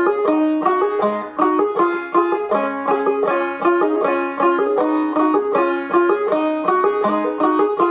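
Gold Tone CC Carlin 12 five-string banjo played clawhammer style in double C# tuning with a capo at the first fret: an instrumental break of quick, evenly spaced plucked notes.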